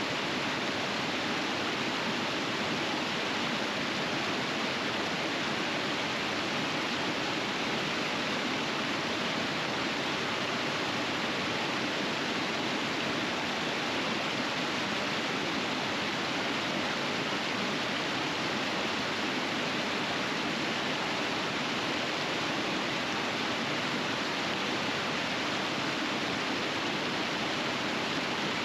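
River rapids rushing: a steady, even noise of flowing water that does not change or break.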